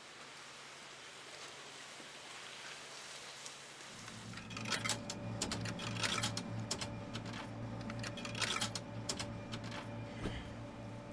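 Faint hiss, then about four seconds in a vending machine's steady electrical hum comes in. Over it, the machine's keypad buttons click in quick runs of presses.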